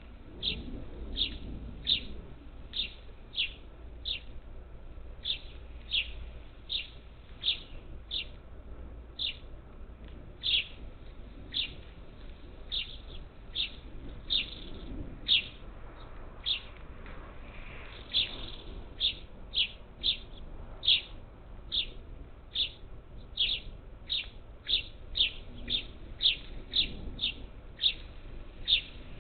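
A bird calling with short, sharp chirps, roughly one to two a second, kept up steadily throughout.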